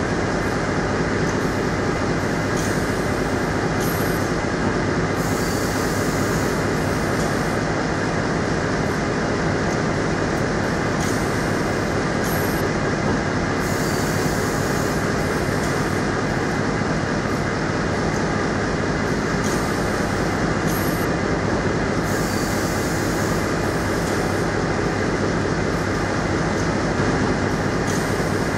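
Corrugated box production line running steadily: flexo folder-gluer, strapping machine and palletizer, a dense, even machine din with a short hiss that comes back every eight or nine seconds.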